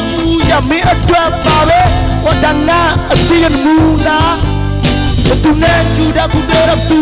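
Live band playing: a male singer sings into a microphone over a drum kit, guitars and keyboard, with a steady beat.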